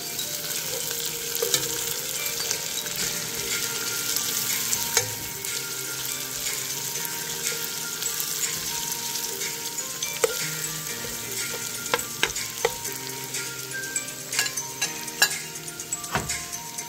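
Sliced red onions and curry leaves sizzling in hot oil in a pot, stirred with a spatula that scrapes and knocks against the pot now and then.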